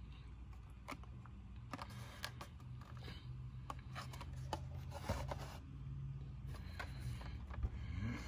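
Hot Wheels blister-card packages being handled and swapped in the hand: scattered soft clicks, rubs and scrapes of cardboard and plastic blister, over a low steady hum.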